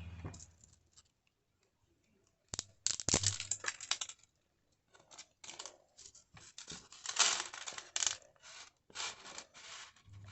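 An irregular run of sharp clicks, taps and rustles, starting about two and a half seconds in, with the busiest bursts just after that and again around the middle.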